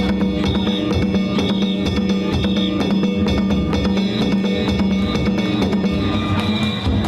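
Danjiri festival music (narimono): taiko drums and hand-struck gongs beaten in a rapid, steady rhythm, the metal gongs ringing on between strikes.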